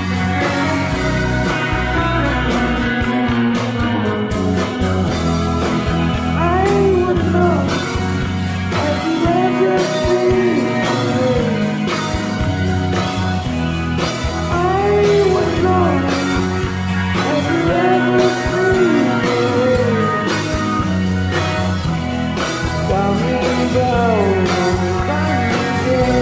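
Rock music: a band with guitar and a bass line, with a lead melody that slides between notes above it from about six seconds in.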